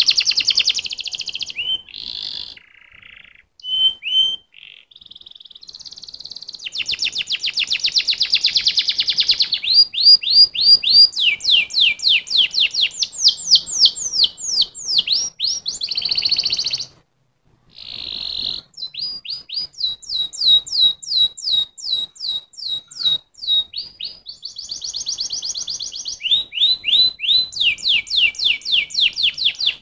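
Domestic canary singing a long song of fast trills: runs of rapid, high, downward-sweeping notes at changing speeds. The song breaks off briefly a few seconds in and again just past halfway.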